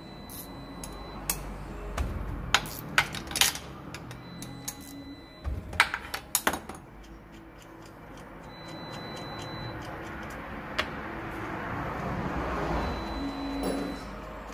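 Metallic clinks and clicks of a spanner and a bolt being handled and put down on a workbench. From about eight seconds in, a longer, rising scraping rustle as hands work the clutch release fork inside the gearbox bellhousing.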